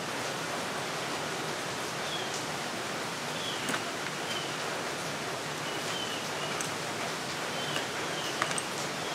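Steady hiss of rain outside. A few faint, short, high chirps come now and then, with a couple of light clicks.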